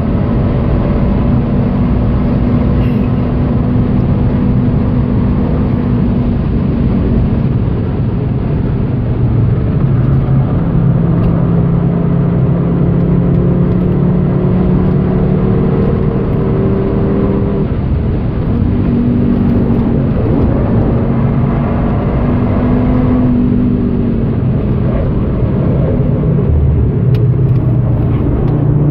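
Audi TT RS 8J's turbocharged five-cylinder engine heard from inside the cabin, pulling hard at high revs in fourth gear. Its note rises and falls several times as the driver lifts and gets back on the throttle for corners, and it drops into third gear near the end.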